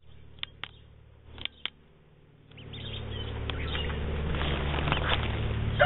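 Newly hatched ducklings peeping in the nest: four short, high peeps in two quick pairs. From about two and a half seconds in, a noise rises and holds under them.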